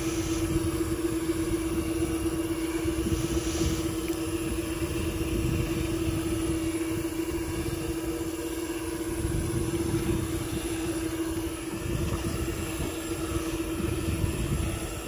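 Electric deep-drop fishing reel running steadily, winding the line up, with a constant motor hum. Gusting wind rumbles on the microphone underneath.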